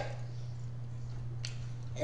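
A short pause in the talk holding only room tone: a steady low hum, with one faint click about one and a half seconds in.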